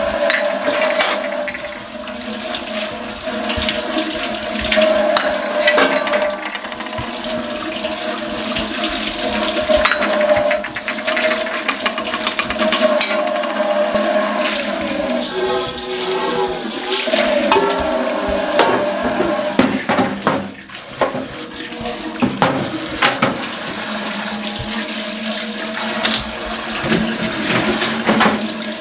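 Kitchen tap running into a stainless steel sink, the stream splashing off gas stove burner parts, a steel bowl and the metal stove top being rinsed under it. Scattered sharp knocks of metal parts against the sink and each other come through the water noise.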